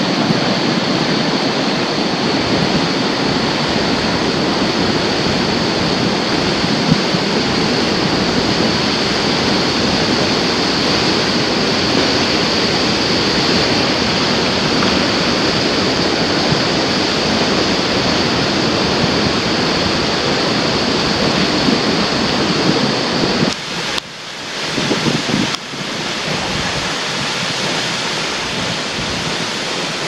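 Tall waterfall plunging into its plunge pool: a loud, steady rush of falling water, with a brief dip in level late on.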